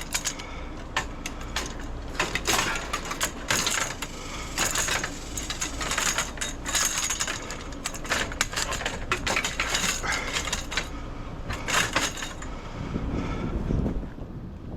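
Scrap metal being handled and loaded: irregular clanks, knocks and rattles of metal objects, with a lower rumbling scrape near the end.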